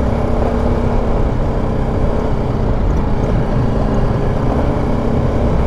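BMW G310 GS motorcycle's single-cylinder engine running at a steady low speed as the bike rolls along, over a constant low rumble.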